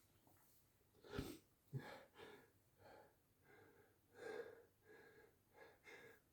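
Faint breathing with a few short catching breaths, the build-up of a sneeze.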